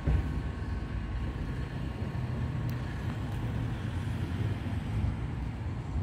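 Low, uneven outdoor rumble with faint steady hums, and a brief click about two and a half seconds in.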